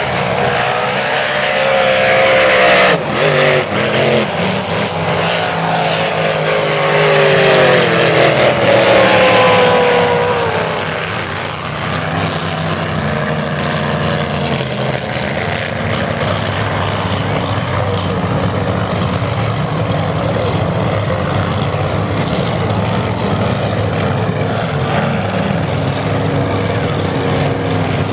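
Race boat engines running at full throttle as the boats pass, the pitch falling as each goes by in the first ten seconds, then a steadier engine drone as another boat runs along the course.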